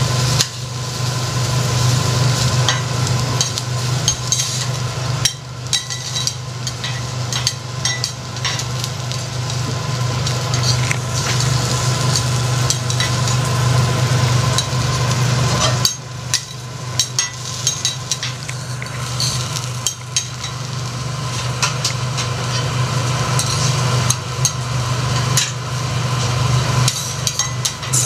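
Prawns sizzling on a hot steel teppanyaki griddle, with frequent clicks and scrapes of metal spatulas against the plate, over a steady low hum.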